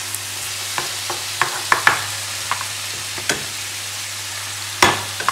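Marinated pork strips sizzling in a hot nonstick frying pan while a spatula stirs and separates them, with short clicks and scrapes of the utensil against the pan and one louder knock near the end.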